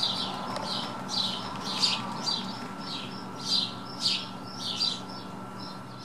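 Young songbird in a wooden nest box chirping: short high chirps repeated about twice a second, over a faint steady hum.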